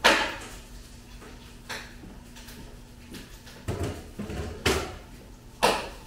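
Kitchen clatter of cookware and utensils being handled at a counter. A loud knock comes right at the start and a light one near two seconds in. A cluster of heavier clunks and thuds follows around four seconds, then another sharp knock near the end.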